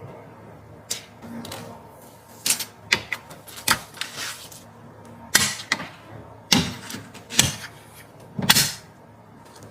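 Hands handling computer parts and their packaging: scattered sharp clicks and taps, then several short rustling, scraping strokes in the second half.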